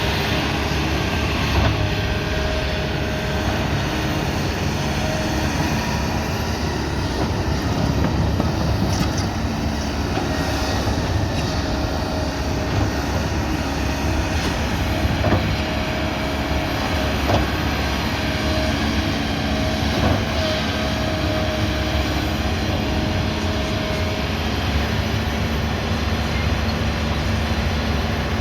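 Kobelco 220 excavator's diesel engine running steadily under working load, with a thin whine that comes and goes and a few sharp knocks scattered through.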